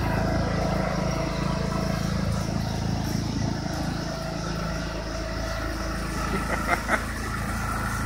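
Riding lawn mower engine running steadily under load as it tows a refrigerator on a rope across a lawn. Two brief knocks sound near the end.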